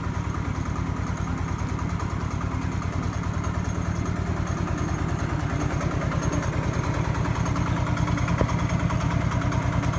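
Single-cylinder diesel engine of a two-wheel walking tractor running steadily with a fast, even chugging, belt-driving a small rice mill that is hulling rice. The sound grows a little louder in the second half.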